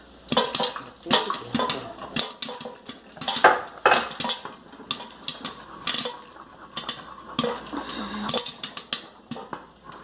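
A wooden spoon stirring thick banana sweet in a metal pot, scraping and knocking against the pot's sides in irregular clatters.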